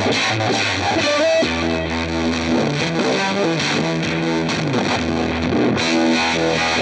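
Fender Telecaster electric guitar played with heavy distortion through a Lovepedal Pickle Vibe modulation pedal, holding long notes over a low drone with a few bends in pitch.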